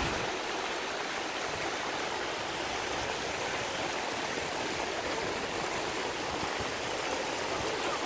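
Rain falling steadily onto the pool and paving, an even hiss that holds constant throughout.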